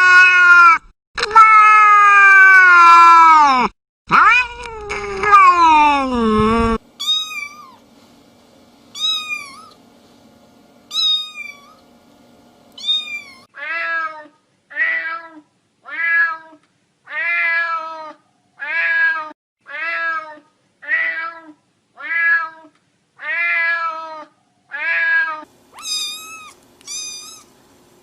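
Cats meowing: three long drawn-out meows, the third falling in pitch, then a run of short high-pitched mews about one a second, then a steady series of short meows a little under a second apart, with high mews again near the end.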